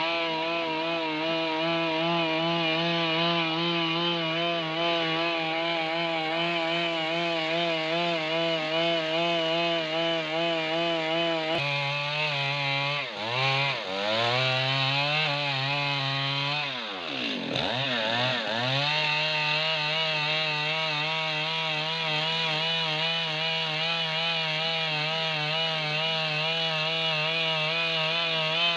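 Stihl MS 382 two-stroke chainsaw running at high revs, cutting through big timber. Its engine speed drops twice, at about 13 and 17 seconds in, and climbs back each time, then holds steady again.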